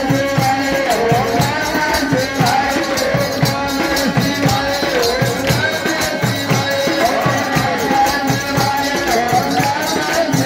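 Devotional kirtan music: a drum keeping a steady, even beat under harmonium and singing.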